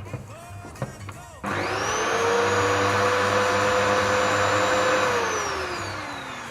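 Festool PF 1200 E plunge router's motor switched on about a second and a half in. It spins up quickly to a steady high whine, runs for a few seconds, then is switched off and winds down with falling pitch. It is a test run after the armature bearings were replaced.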